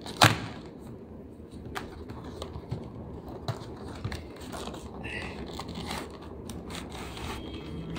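Hands handling a cardboard box of gouache paint tubes: the card rubbing and scraping as it is turned and worked open, with scattered light taps and a sharp click just after the start.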